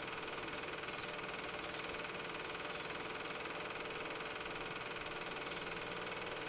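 Keystone 2500 dual 8 film projector running steadily, projecting Super 8 film: a quiet, even mechanical chatter from its motor and film transport.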